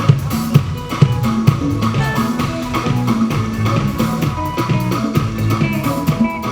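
Live band playing an upbeat groove: drum kit keeping a steady beat under bass and guitar.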